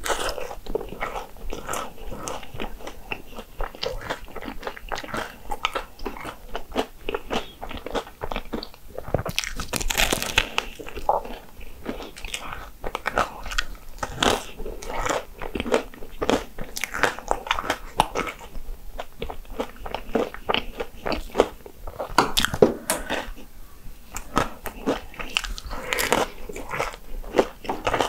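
Hong Kong egg waffle being bitten and chewed: steady crisp crunching and chewing, with louder crunchy bites now and then.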